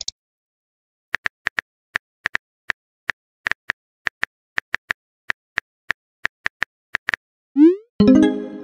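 Simulated phone-keyboard typing clicks, short and sharp, at an uneven pace of about four a second for around six seconds. Near the end a rising swoop and a short chime follow: the app's message-sent sound.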